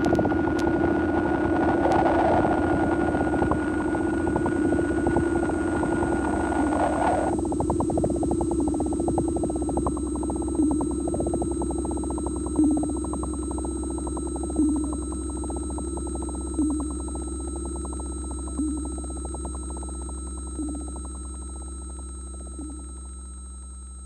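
Eurorack modular synthesizer drone: a low hum with steady high sine tones under a noisy rumble that cuts off suddenly about seven seconds in. After that a soft pulse sounds about every two seconds while the whole sound slowly fades out.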